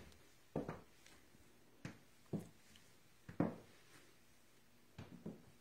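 Slow footsteps on a hard floor: a handful of soft knocks at uneven spacing, about half a second to a second apart.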